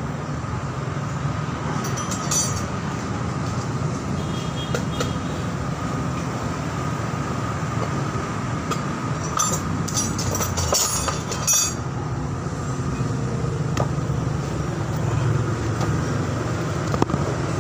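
A steady low rumble throughout, with scattered short metallic clicks and clinks of parts and tools being handled while a sprayer pump is being reassembled, in a small cluster about ten to eleven seconds in.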